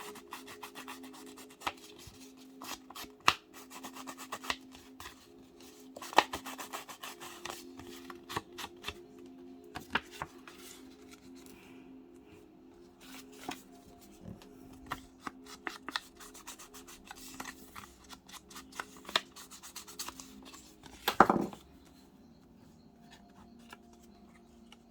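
Paper and card being handled and rubbed on a craft table: scattered rustles, scrapes and light taps, with one louder rubbing stroke near the end.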